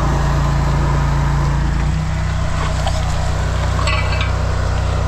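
Engine of a high-pressure drain jetter running steadily under load while jetting a pipe; its note drops slightly about two seconds in.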